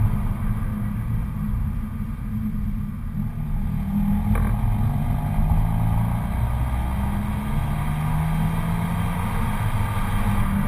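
Stock exhaust of a Dodge Dart GT's 2.4-litre MultiAir inline-four, running steadily under load, its pitch wavering and then climbing from about six seconds in. A single sharp click is heard about four seconds in.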